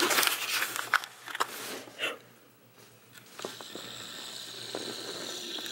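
Clattering and scraping of hand tools on a pool pump's strainer housing, with a few sharp clicks as the plastic strainer basket is lifted out. In the second half a faint steady high-pitched hiss sits over a low hum.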